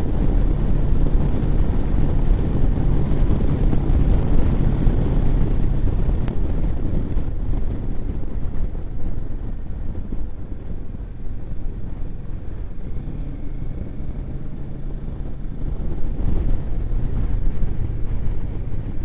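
Motorcycle engine running at road speed under heavy wind rush on the microphone. The engine hum fades back for several seconds in the middle and then picks up again.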